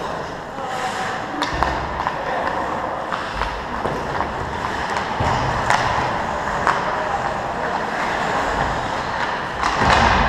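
Ice hockey being played: skate blades scraping the ice over a steady rink background, with scattered sharp clacks of sticks and puck and a louder scrape and clatter near the end.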